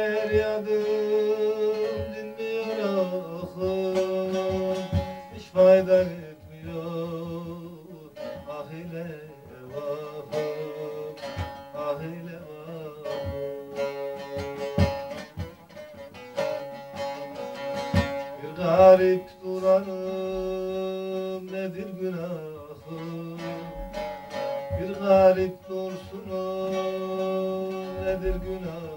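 Bağlama, the Turkish long-necked lute, played instrumentally: quick plucked notes over held, ringing tones.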